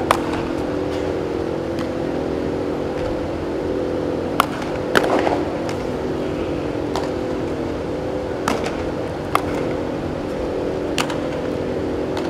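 Steady mechanical hum from the indoor facility's fans or air handling, made of several even tones. About six sharp cracks of baseballs being hit and fielded are spaced through it.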